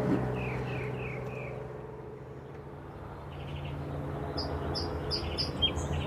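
Northern mockingbird singing in short repeated phrases: four down-slurred whistles, then a buzzy phrase past the middle, then five quick higher notes near the end, over a steady low hum.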